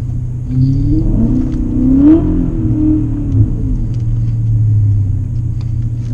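BMW E39 M5's 4.9-litre V8 with an X-pipe and muffler delete, heard from inside the cabin while driving: it revs up about a second in, drops back, then runs steady before climbing again at the very end.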